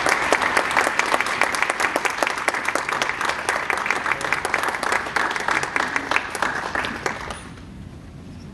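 Audience applauding, a dense patter of hand claps that dies away about seven seconds in.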